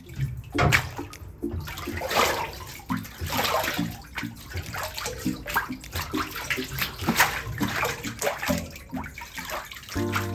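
Water sloshing and splashing irregularly in a vat of washi paper pulp, the beaten tree-bark fibres being worked in the water.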